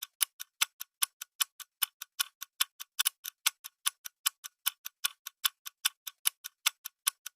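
Ticking-clock sound effect used as a quiz countdown timer: sharp, even clicks at about five a second, marking off the seconds left to answer.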